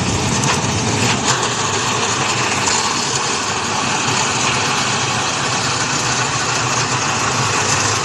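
Rice harvesting machine running steadily, a constant engine and machinery noise.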